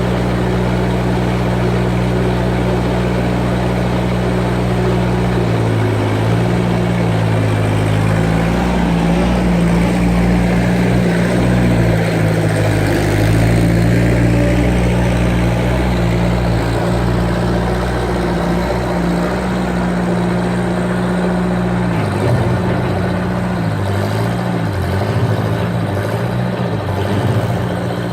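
Skid steer engine running loud and steady. Its pitch dips and rises several times, most around six seconds in, in the middle and in the last few seconds.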